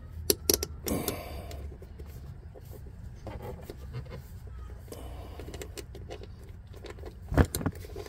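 Metallic clicks and clinks of a wrench and bolt hardware being worked by hand at a car door while a rubber washer is forced on. There is a cluster of sharp clicks at the start, a brief rustle about a second in, and one loud knock near the end.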